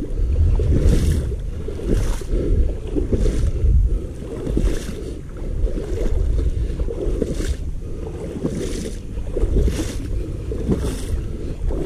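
Feet wading through shallow marsh water, one soft splash about every second and a quarter, over a steady wind rumble on the microphone.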